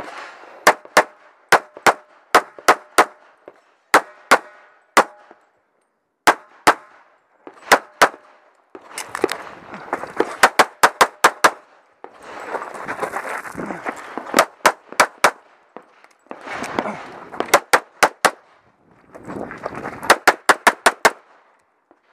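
Competition pistol fired semi-automatically in rapid pairs and quick strings, dozens of shots in all, with short pauses between strings.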